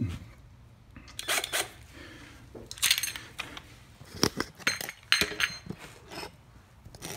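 Several separate short metallic clinks and clatters from tools and engine parts being handled while the carburetor fasteners are worked on.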